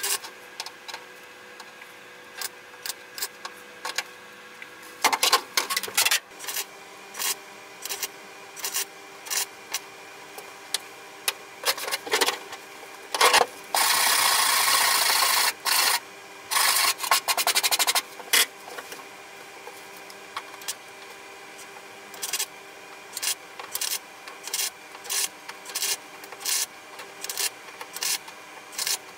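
Electric arc welding on a car's bare steel floor pan, tack and stitch welds for floor reinforcement: short bursts of arc, mostly under a second each and about one a second, with two longer runs of a few seconds near the middle, over a steady faint hum.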